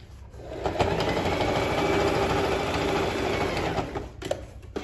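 Singer sewing machine stitching a seam at a steady fast speed. It starts about half a second in and stops a little before four seconds, followed by a couple of light clicks.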